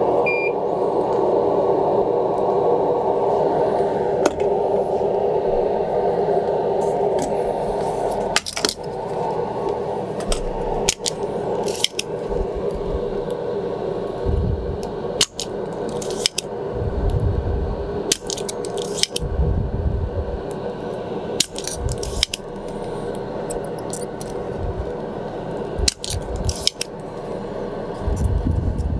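Manual spring-loaded desoldering pump being cocked and fired again and again while desoldering the old Omron switch from a mouse circuit board: about a dozen sharp clicks and snaps, often in pairs, starting a third of the way in. Under them a steady fan hum from a fume extractor, louder in the first third.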